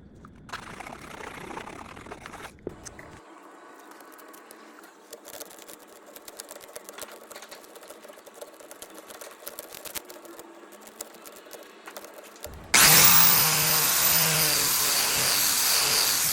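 Angle grinder with a flip-flop mounted in place of a disc: a short burst of running early on, then a quieter stretch of scattered clicks and rubbing, then the grinder runs loud with a steady high whine for the last three seconds or so.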